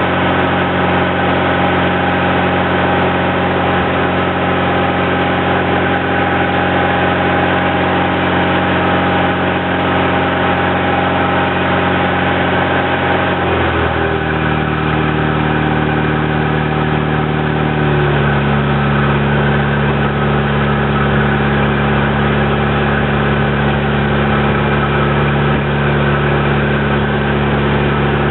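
Toyota 22R four-cylinder engine running on wood gas, driving an induction motor as a generator: a steady running drone whose pitch drops in two steps, about halfway through and again a few seconds later.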